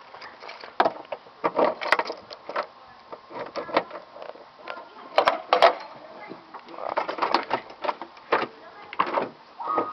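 Footsteps on asphalt with scattered clicks, knocks and scuffs as a person gets out of a car and walks around it.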